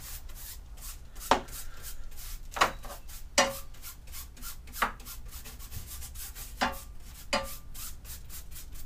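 A hand rubbing and brushing over a car radiator's face and fins: an irregular string of short scratchy strokes, a few of them sharper and louder.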